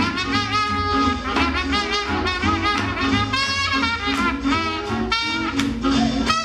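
Swing jazz music with brass horns carrying the melody over a steady beat.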